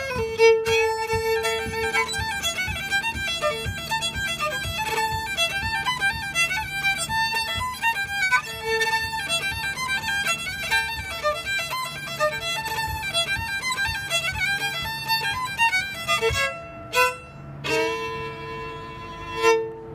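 Solo fiddle playing a fast Irish reel, the notes running quickly until about four seconds from the end, then a few short separate strokes and a long held final note that closes the tune.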